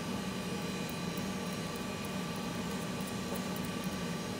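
Steady low hum with an even hiss behind it, level and unchanging throughout.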